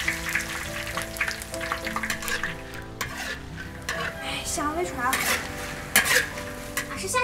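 Dried red chillies sizzling in hot oil in a large iron wok, stirred and scraped with a spatula.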